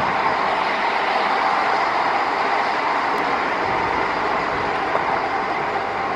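ZSSK class 812 diesel railcar coming slowly along the platform, a steady, even running noise of its engine and of its wheels on the rails.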